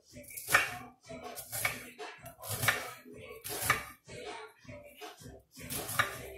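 Chef's knife chopping broccoli on a marble board: sharp knocks about once a second, with lighter taps in between and a short lull a little after the middle.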